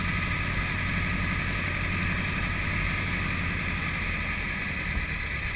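Light aircraft's piston engine running steadily at idle, heard from inside the cockpit, with propeller and air noise over it.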